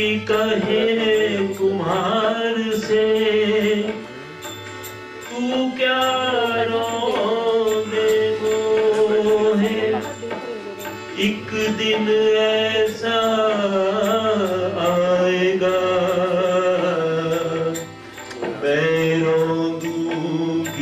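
Hindi devotional bhajan: long, drawn-out sung phrases over a sustained harmonium, with tabla strokes beneath. The singing breaks briefly twice, about four seconds in and near the end.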